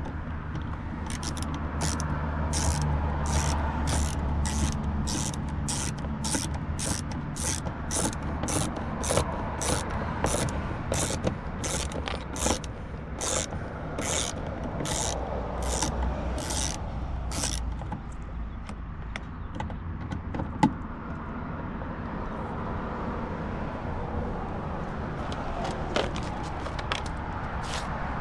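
Ratchet wrench on an extension clicking steadily, about two clicks a second, as a door-panel bolt is backed out; the clicking stops about 17 seconds in, leaving only a few faint clicks. A low steady rumble runs underneath.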